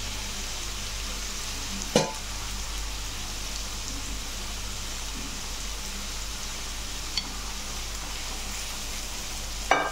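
An onion-tomato masala with spices sizzles steadily as it fries in oil in a frying pan, while a steel spoon stirs it. The spoon knocks sharply against the pan about two seconds in and again near the end.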